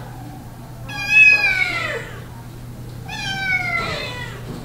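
Two long meows from a domestic cat, each falling in pitch, about a second in and again about three seconds in, over a steady low hum.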